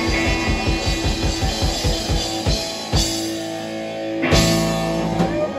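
A live blues-rock band of two electric guitars, bass and drums. Fast, even drumming runs under held guitar chords, then gives way to a few hard accented hits and a big crash about four seconds in. The last chord rings for a moment, like the close of the song.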